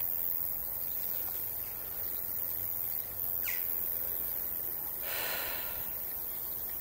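Open-air meadow ambience with steady hiss. A brief falling whistle comes about three and a half seconds in, and a short harsh call or rasp about five seconds in.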